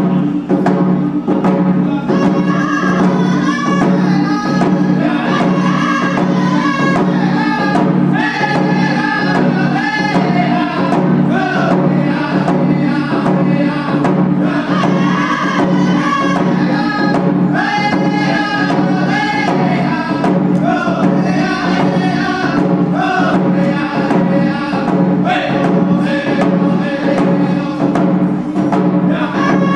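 Three men beat hand-held frame drums together in a steady, even beat and sing in unison. The drums play alone at first, and the voices join about two seconds in.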